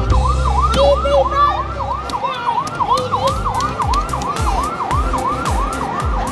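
Electronic fire-engine siren sound effect from a coin-operated fire-truck kiddie ride, a fast yelp rising and falling about three times a second. A low drone sits underneath and stops about two seconds in.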